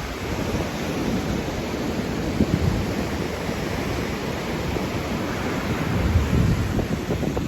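Pacific surf washing steadily onto a beach, with wind buffeting the microphone and a slight swell in the surf about six seconds in.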